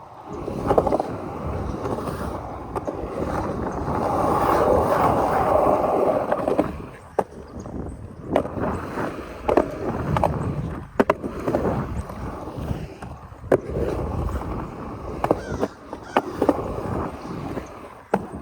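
Skateboard rolling on pavement, pumped and carved along without pushing: a steady rough wheel rumble, louder about four to six and a half seconds in, with several sharp clacks in the second half.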